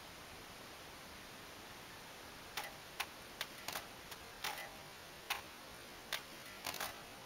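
A katana cutting through a rolled mat target in quick successive cuts: a run of short, sharp snaps, about a dozen over four seconds, starting a couple of seconds in.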